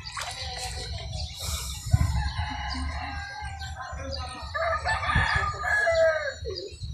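A rooster crowing: one long crow from about four and a half seconds in, sliding down at the end, with fainter calls before it and a low rumble underneath.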